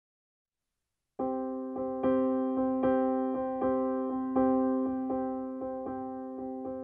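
Background piano music starting about a second in, its notes struck at an even pace.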